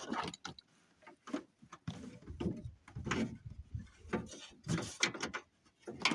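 Irregular clicks, taps and rustling from hands working a truck door's wiring harness and its plastic clips.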